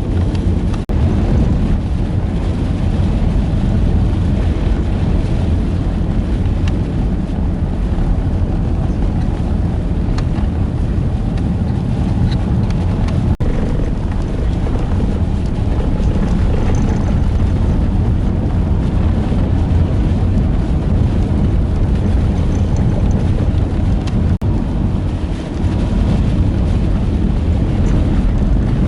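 Steady low rumble of a vehicle driving through a blizzard, mixed with strong wind.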